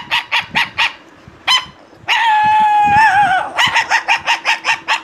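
A man imitating a small puppy with his voice. Quick high yaps come about five a second, then a single yap, then one long whine that wavers and falls near its end, then another fast run of yaps.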